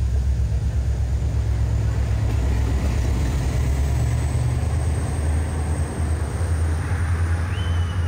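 WDG4 diesel-electric locomotive's two-stroke diesel engine running as the locomotive passes close by, giving a steady, deep rumble.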